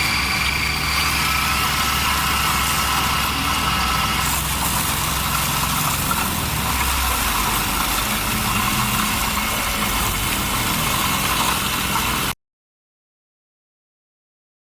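An engine running steadily, with a low hum and a thin high whine on top, cutting off abruptly about twelve seconds in.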